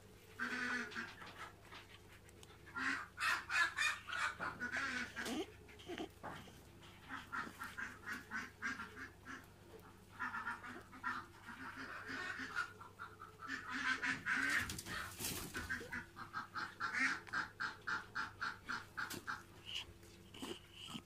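Animal calls in quick runs of short, squeaky notes, repeating on and off.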